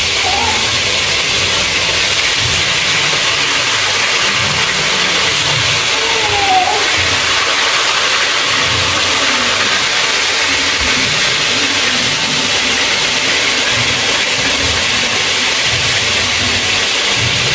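Marinated meat frying in hot oil: a steady, loud sizzle.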